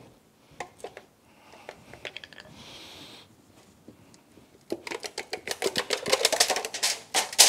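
Cylinder head of a Yamaha F225 V6 outboard powerhead being rocked and worked loose from its locating dowels and head gasket by hand: scattered light metal clicks, then about three seconds of rapid clacking and rattling near the end, finishing in a louder knock.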